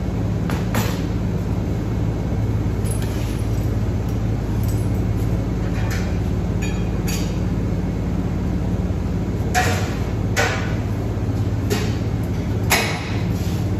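Steady hum of dairy milk-room machinery, with scattered clinks and knocks as hoses and fittings are handled on a stainless-steel bottle washer; a few louder knocks come in the second half.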